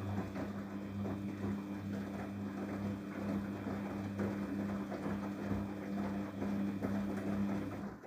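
Daewoo DWD-FT1013 front-loading washing machine running on a Cotton 40°C wash: a steady low hum with water swishing and light rattles, which cuts off suddenly near the end.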